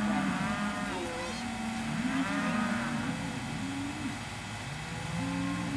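Cattle mooing: a few drawn-out calls, one near the start, another about two seconds in and a third near the end.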